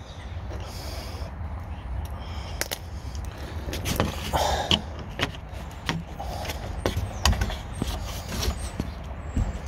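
Handling sounds while working a ratchet on an exhaust oxygen sensor: scattered irregular clicks and knocks of the tool on metal, with rubbing and scuffing against the microphone over a low rumble.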